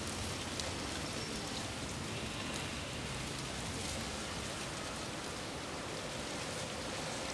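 Steady, even outdoor hiss with no distinct events, like wind or light rain ambience.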